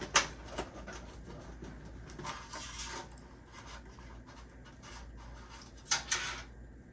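Cables being pulled and rerouted through a PC case's cable-management holes: rustling and scraping of cable against the case, with a few sharp clicks and taps, one near the start and two close together near the end.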